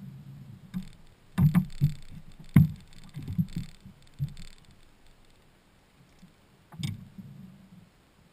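Low hum of a bass boat's electric bow-mount trolling motor, which stops about a second in. Then a run of heavy footsteps and knocks on the boat's hollow fibreglass deck as someone walks along it, with one more thud near the end.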